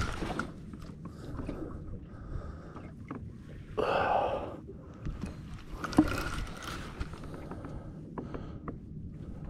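Wind and water noise around a small fishing boat, with knocks from handling the rod and spinning reel. A short breathy grunt comes about four seconds in.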